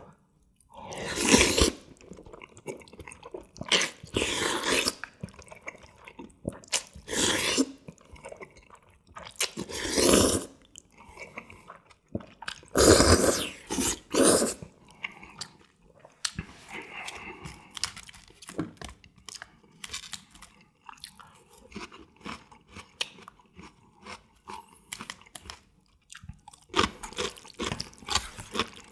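Close-up eating sounds of a person slurping black-bean-sauce noodles (jjajangmyeon): a string of loud short slurps in the first half and again near the end, with wet chewing between.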